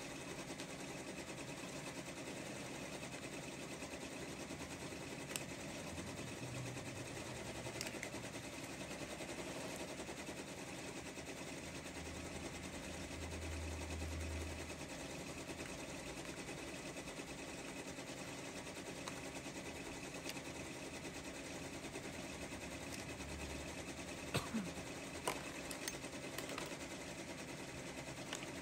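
Embroidery machine running steadily, with a few light clicks of plastic parts being set into a plastic organizer box near the end.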